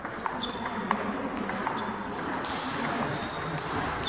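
Table tennis ball clicking off bats and the table: a handful of short, sharp pocks, most in the first two seconds.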